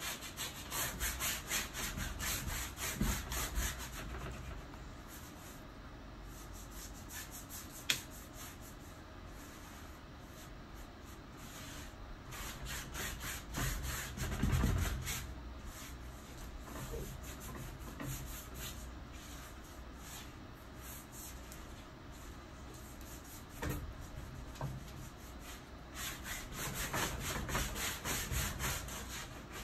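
Rapid back-and-forth scrubbing of acrylic paint into a stretched canvas, a dry rubbing sound in bursts of quick strokes, busiest at the start, in the middle and near the end. A single sharp click about eight seconds in.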